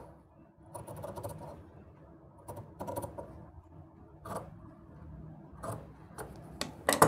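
Scissors cutting a fabric collar strip: about eight short, crisp snips, irregularly spaced, the loudest near the end.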